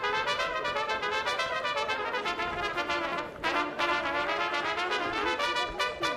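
Background music led by brass instruments, playing quick rhythmic notes.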